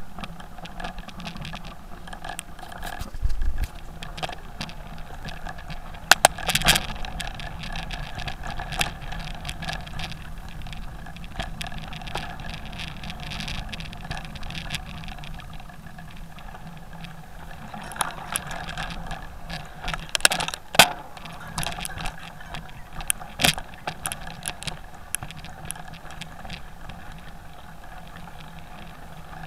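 Mountain bike ridden fast along a dirt singletrack, heard through a camera mounted on the handlebar: steady rumble of tyres and drivetrain, broken by frequent sharp rattles and clacks as the bike jolts over bumps. The loudest knocks come about six seconds in and again about twenty seconds in.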